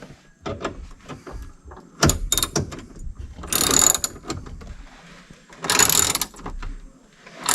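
Hand ratchet clicking in several short bursts of strokes, tightening the bolts that hold a window regulator inside a car door.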